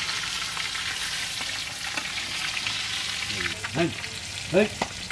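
Pieces of katla fish frying in hot oil in a kadai, with a steady sizzle. Near the end a few short vocal sounds rise above it.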